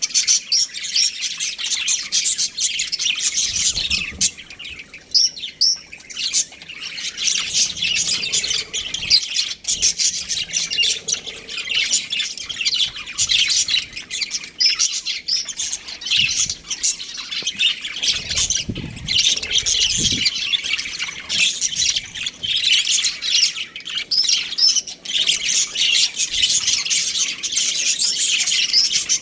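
Budgerigars chirping and chattering without pause, a dense stream of quick, scratchy calls.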